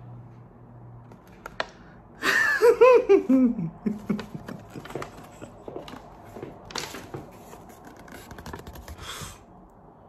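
A woman laughs nervously about two seconds in, a quick run of short bursts falling in pitch. Faint rustling and light clicks follow.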